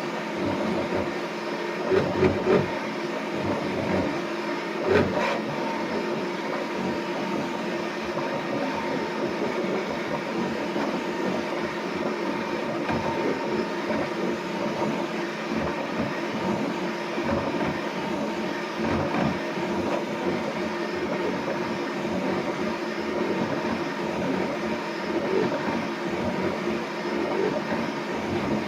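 Bambu Lab P1S 3D printer running and making an abnormal noise: a steady mechanical rattle and hum with several held tones, and a few louder knocks about two and five seconds in.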